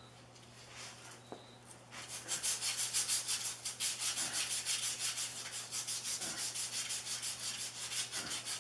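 Fine emery cloth drawn quickly back and forth around a Troy-Bilt Super Bronco tiller's metal tine shaft, a scratchy sanding rasp that starts about two seconds in. The shaft is being cleaned up so the new tine oil seal can go on.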